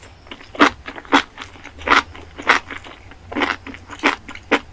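Chewing a mouthful of burger close to the microphone: a steady run of chews, roughly two a second.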